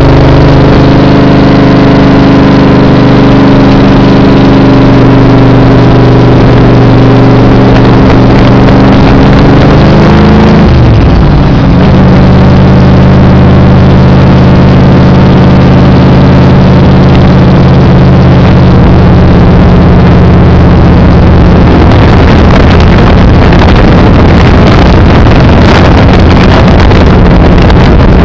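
Cobra roadster's V8 engine running steadily at cruising speed, heard from the open cockpit. About ten seconds in the engine note drops quickly to a lower pitch and holds there, and wind noise over the open car grows stronger near the end.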